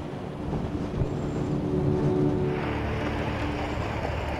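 Pickup truck driving on a gravel road: engine running with tyre noise on the gravel. The gravel hiss gets louder about two and a half seconds in.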